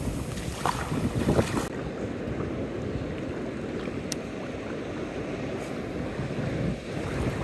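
Small waves washing over sand in the shallows, with wind rumbling on the microphone; the hiss of the wash drops away sharply about two seconds in, and a single light click comes about four seconds in.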